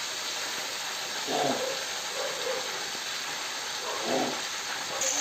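Flour-coated chicken pieces deep-frying in hot oil: a steady sizzling hiss.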